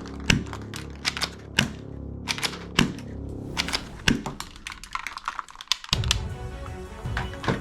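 Background music with an irregular run of sharp clicks and taps over it; the music's low notes drop away for about a second and come back near the end.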